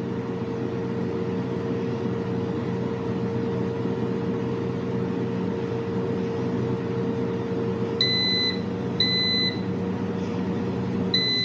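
Izzy air fryer's fan running with a steady hum through the last seconds of its cooking timer. It beeps twice, about 8 and 9 seconds in, then gives a longer beep as the fan stops near the end: the cycle has finished.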